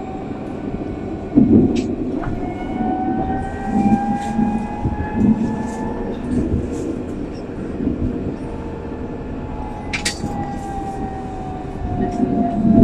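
Alstom Citadis 302 tram running, heard from just behind the driver's cab: a steady rumble with a whine from the electric traction drive that climbs in pitch as the tram picks up speed and falls again near the end as it slows. A few sharp knocks and clicks come through, the clearest about a second and a half in and about ten seconds in.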